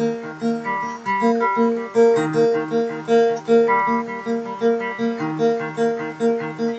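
Guitar played without singing, picking a repeating pattern of single notes, about two to three a second, around one note that keeps coming back at the same pitch.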